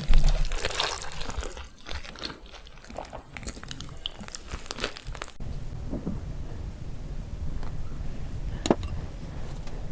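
Eating sounds: crunchy bites and chewing, busiest in the first five seconds, then quieter, with a single sharp click a little before the end.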